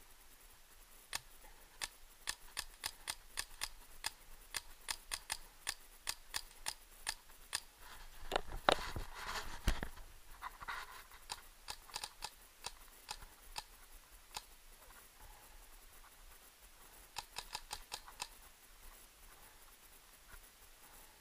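Paintball markers firing in uneven strings of sharp pops, about three a second, with a short quick string near the end. A brief rustling scrape close to the microphone about halfway through is the loudest moment.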